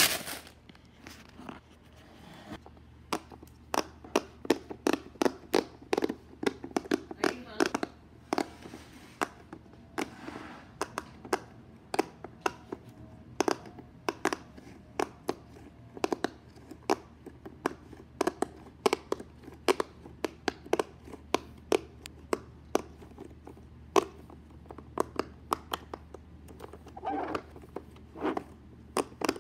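Jumbo silicone pop-it fidget toy, its bubbles pressed one after another by fingers: a long, uneven run of short, sharp pops, several a second.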